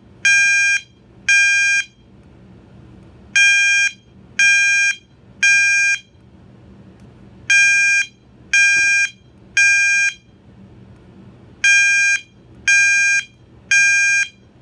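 Gentex GOS-24-15/75WR fire alarm horn strobe sounding its 800 Hz temporal tone on high volume: loud beeps in groups of three, each about half a second long, with the groups repeating about every four seconds. This temporal three-pulse pattern is the standard fire evacuation signal.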